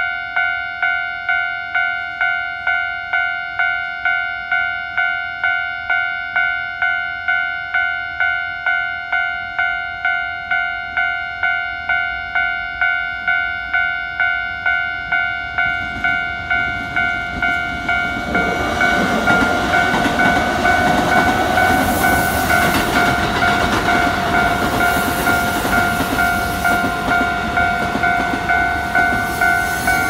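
Japanese railway crossing warning bell ringing as a steady, evenly repeating electronic clang. About halfway through, a Keikyu electric train approaches and passes close by, louder than the bell, its wheels clacking over the rail joints.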